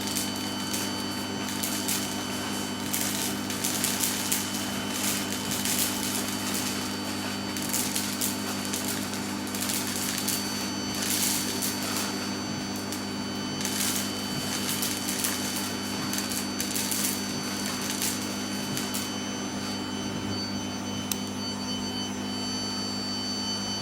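Vacuum cleaner running with a steady hum and whine while sucking up plastic beads, which rattle and click through the nozzle and hose in spells through most of the first twenty seconds; near the end only the motor hum is left.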